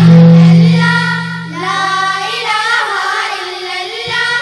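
A group of children singing a hamd, a hymn in praise of God, together into one microphone. A loud low hum sits under the voices and fades out near the end.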